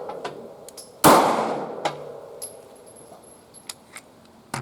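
A single pistol shot about a second in, from a Taurus GX4 9mm, its report trailing off over about a second. Several faint clicks follow, with a sharper click near the end.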